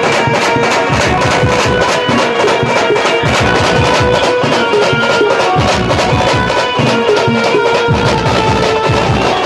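Maharashtrian banjo band playing a song: a sustained melody line over fast, dense drumming.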